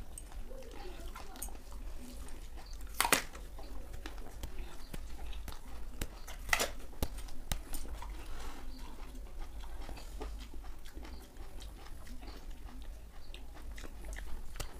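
Apple being bitten and chewed, with wet crunching. Two sharp crunching bites stand out, about three seconds and six and a half seconds in.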